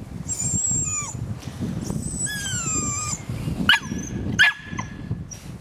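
Cirneco dell'Etna whining: several high-pitched cries that slide down in pitch, then two short, sharp yips close together about four seconds in.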